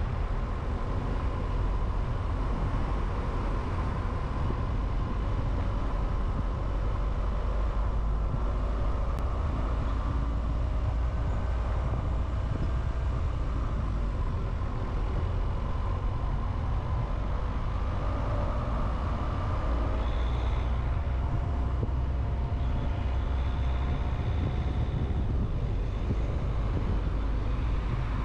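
A car driving steadily: a constant low rumble of engine and tyre noise, with faint whining tones that drift slowly in pitch.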